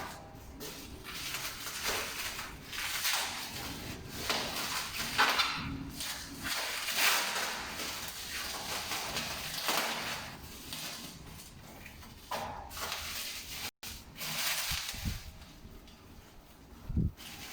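Packaging being handled, rustling and crinkling in irregular bursts, with a few light knocks near the end.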